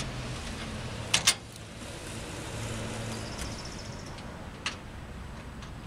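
Wing nuts and washers being taken off a truck-bed bike rack's mounting bolts: two sharp metallic clicks a little after a second in, a short run of light rapid ticking in the middle, and another click near the end, over a steady low hum.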